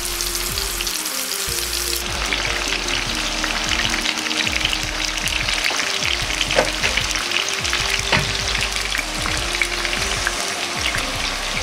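Green onion and ginger pieces bubbling and crackling in about 100 cc of oil in a frying pan, with a few louder pops. The oil has reached a steady bubble (guts-guts), the sign that it is hot enough to turn the flame down to low for slow-frying scallion oil.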